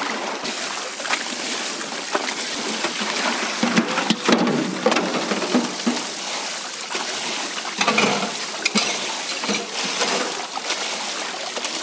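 Water spraying from a sink faucet onto cooked noodles in a metal colander, splashing as gloved hands rub and rinse the noodles. Louder splashes come about four and about eight seconds in.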